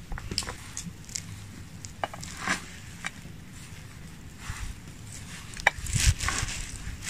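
Hands scooping sliced red onion and pomegranate seeds off a wooden board and stuffing them into a raw seasoned guinea fowl: scattered soft clicks and rustles of handling, with a louder cluster about six seconds in.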